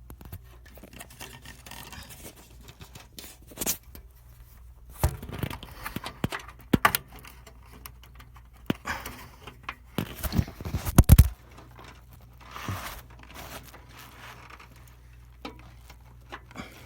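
Handling noises of fitting a graphics card into a computer case: scattered clicks, knocks and scrapes of hard parts, with a loud cluster of knocks about ten to eleven seconds in.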